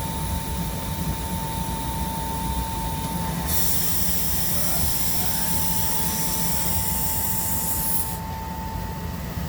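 Steady industrial machine hum with a constant high tone. About three and a half seconds in, a hiss of air starts, runs for about four and a half seconds, and cuts off sharply.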